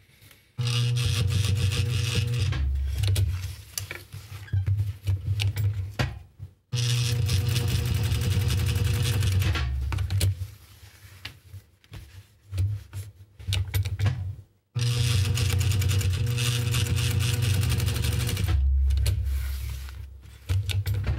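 Juki DDL-555-4 industrial straight-stitch sewing machine stitching through webbing and mesh strap material. It runs in three steady runs of a few seconds each, with short stop-start bursts and brief pauses between them.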